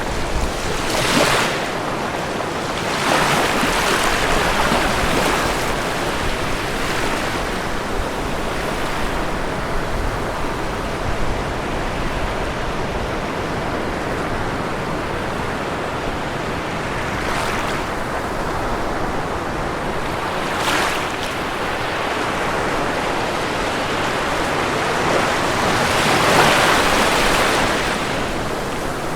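Ocean surf washing continuously onto a shore, with waves breaking every several seconds; the biggest break comes near the end.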